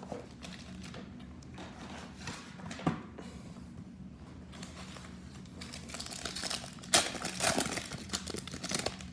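Trading-card pack wrapper being crinkled and torn open, with a sharp click about three seconds in and a denser run of crackly rustling in the last few seconds.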